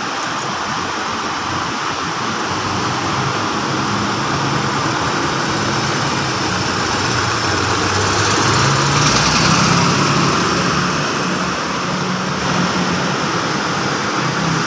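Isuzu truck's six-cylinder diesel engine running steadily, now that its suction control valve fault has been cleared; it grows louder about halfway through, then eases back.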